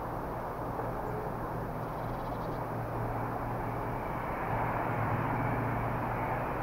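Diesel engine of an approaching High Speed Train (InterCity 125) power car working under power: a steady low drone with a hiss of running noise, growing a little louder about four seconds in.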